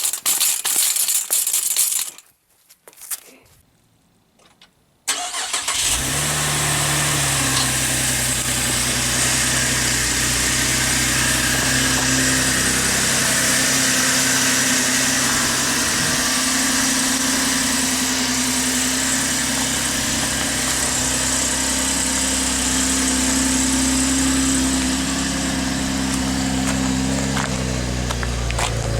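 Some brief knocking and rustling, then about five seconds in a 2013 Chevrolet Camaro's 3.6-litre V6 starts and settles into a steady idle.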